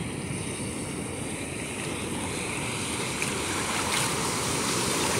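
Ocean surf washing in the shallows, a steady rush of water that grows gradually louder.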